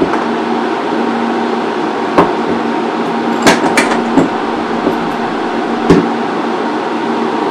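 Metal clicks and knocks of a spanner on the bolted terminals as a LiPo pack's leads are unbolted from the discharge tester: one about two seconds in, a cluster a little later and one near six seconds. Underneath, the tester's cooling fans hum steadily.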